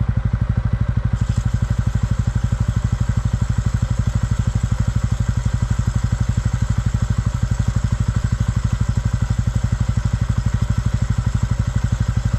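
TVS Ronin 225's single-cylinder engine idling with a steady rapid pulse. From about a second in, an aerosol can of chain lubricant sprays onto the drive chain with a steady hiss over the engine.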